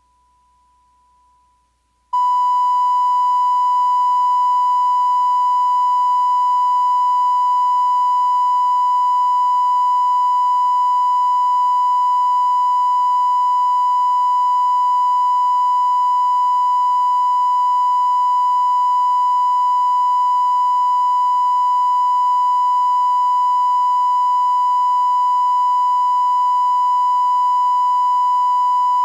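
Video line-up test tone accompanying colour bars: a single steady 1 kHz reference tone, faint at first, jumping to full loudness about two seconds in and then holding unchanged.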